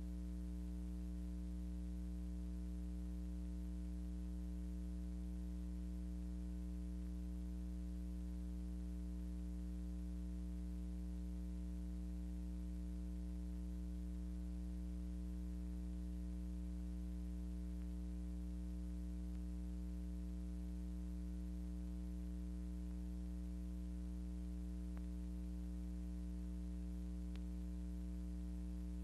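Steady electrical mains hum with its stack of overtones over a faint hiss, with two faint ticks near the end.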